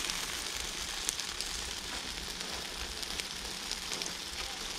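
Chicken and sausages sizzling over hot charcoal on a kettle barbecue grill, a steady hiss with sharp crackles of fat here and there.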